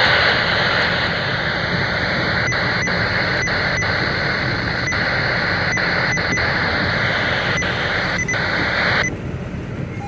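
Steady static hiss from a weather-radio receiver between broadcasts, with faint scattered ticks; the hiss cuts off suddenly about nine seconds in.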